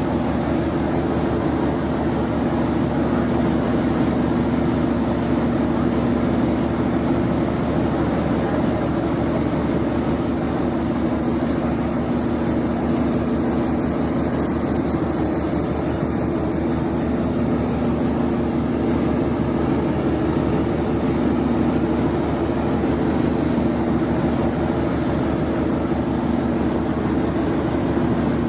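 Boat engine running at a steady drone over a wash of broad noise, with no change in pitch or level.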